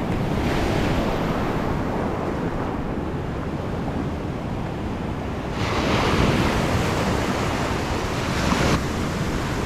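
Ocean surf breaking and washing up the beach, with wind buffeting the microphone. A louder wash of surf comes in a little past halfway and drops away suddenly about three seconds later.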